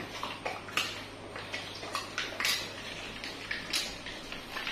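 Dogs crunching and chewing chicken bones on a tabletop: irregular sharp crunches and clicks, a few every second.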